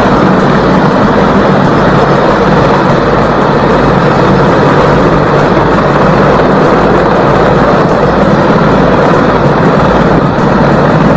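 Mil Mi-26 heavy-lift helicopter passing low overhead, its eight-bladed main rotor and turbines making a loud, steady din.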